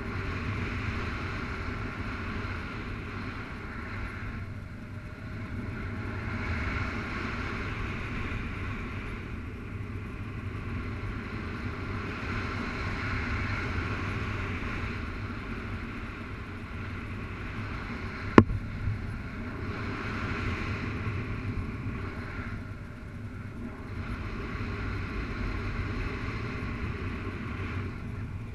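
Wind rushing over the microphone of a harness-mounted camera on a paraglider in flight: steady airflow noise with a low rumble that swells and eases every few seconds. A single sharp click a little past the middle.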